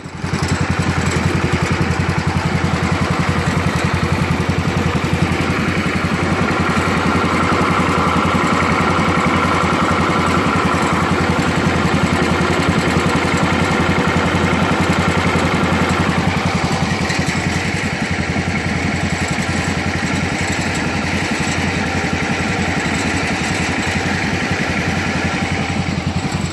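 Wheel Horse garden tractor's small engine running steadily, with a fast, even beat of firing pulses.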